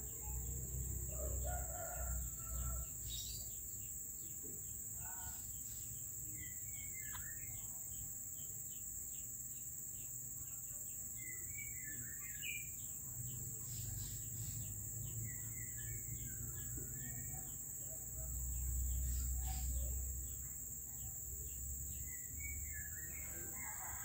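Short bird chirps and calls scattered over a steady, high-pitched insect drone, with a low rumble for a couple of seconds near the end.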